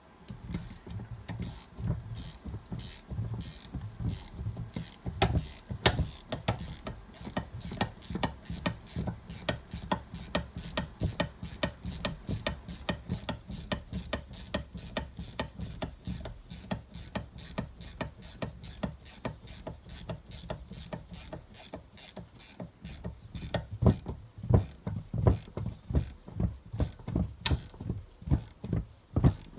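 Ratchet spanner clicking steadily, several clicks a second, as it winds in the centre bolt of a two-legged puller to draw a gear off the gearbox shaft. The clicks grow louder near the end.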